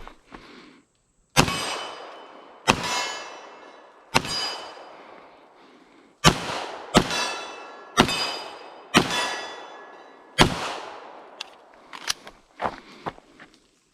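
Eight 9mm pistol shots from a Canik TP9 SFX, fired at an irregular pace, each followed by the ringing of a steel target being hit. A few lighter clicks follow near the end.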